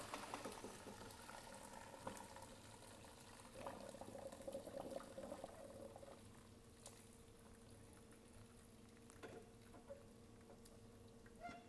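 Faint pouring and trickling of cooking liquid through a sifter and strainer into a bowl, tapering off after about six seconds. A few light clicks and knocks of the utensils.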